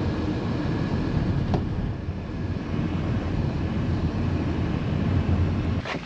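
Car driving on an unpaved dirt road, heard from inside the cabin: a steady rumble of engine and tyres, with one light knock about a second and a half in. It cuts off just before the end.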